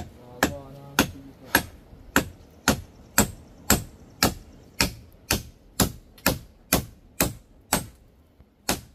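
Knife chopping on a cutting board in steady strokes, about two a second, with a short pause near the end.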